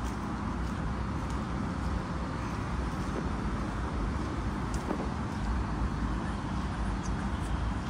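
Steady road traffic noise: an even, continuous rumble of cars passing, with a few faint ticks over it.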